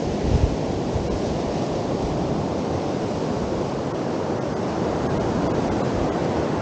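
Sea surf washing steadily onto the beach, with wind on the microphone and a brief low gust buffet shortly after the start.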